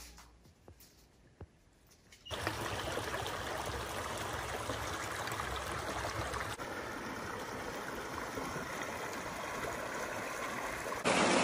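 Shallow creek water trickling over sandstone slickrock: a steady rush of running water that cuts in about two seconds in and grows louder near the end.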